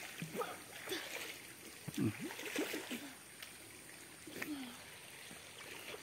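Stream water flowing gently over rocks, with a few faint, brief voices of people nearby.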